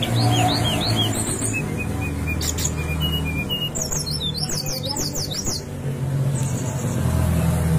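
Brown-chested jungle flycatcher (SRDC) singing: a varied string of high whistled, slurred notes, with a quick run of falling whistles about four seconds in, over a steady low hum.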